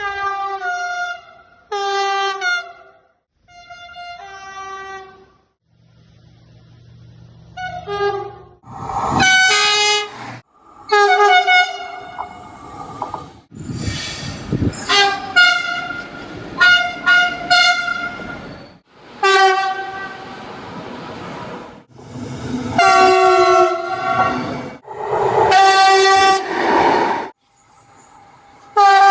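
Train horns sounding in a long run of separate blasts, more than a dozen of them, some short and some held for a second or two, with the rumble and clatter of passing trains under several.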